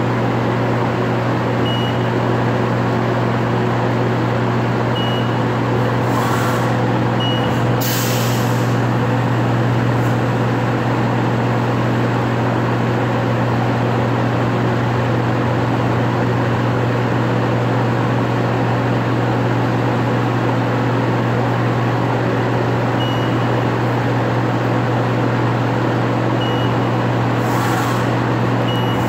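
Haas CNC vertical mill running with a steady low hum, broken by a few short hisses of compressed air and faint short beeps, during a tool breakage check and tool-length measurement between operations.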